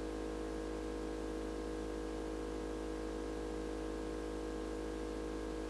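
Steady electrical hum with hiss: several fixed tones held without change, the mains hum of room tone.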